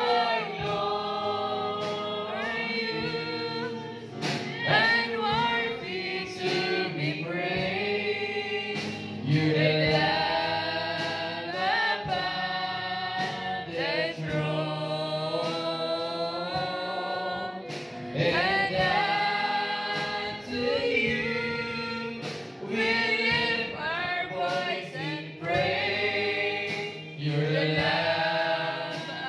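Congregational worship singing: many voices singing a gospel worship song together, with instruments playing along.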